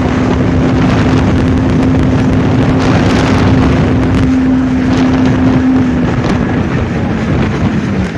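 Small watercraft engine running at a steady speed under a heavy rush of wind on the microphone. Its pitch sinks slightly near the end as it slows.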